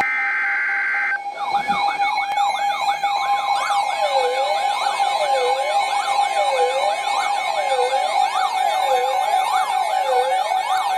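Emergency Alert System alert audio: a one-second screech of digital header data, then several overlapping wailing siren tones rising and falling about once a second over a steady tone, marking the start of a new warning.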